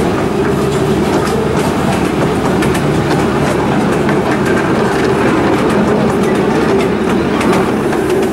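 Railway carriage running along the track, a steady rumble with the wheels clicking over rail joints, heard from on board.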